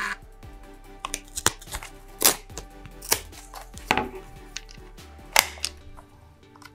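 Hands handling a plastic mini thermal printer and its printed thermal-paper strip: scattered sharp clicks and taps, the loudest about two seconds in and again near the end.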